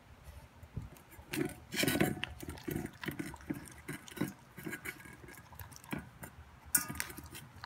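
Boston Terrier puppy eating from a stainless steel bowl: irregular wet chewing and licking with a few sharp clicks, busiest about one and a half to two seconds in.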